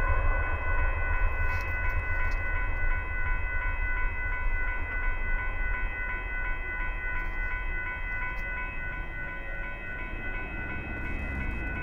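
Railroad crossing warning bell dinging at a steady, rapid rate while the crossing gates rise, over a low, slowly fading rumble from the departing Union Pacific coal train.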